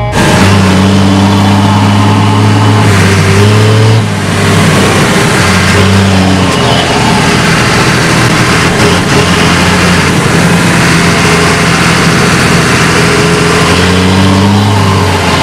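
Heavy diesel farm machinery working the corn silage harvest: an engine running under load with a dense mechanical rush over it, its pitch dropping and rising a few times.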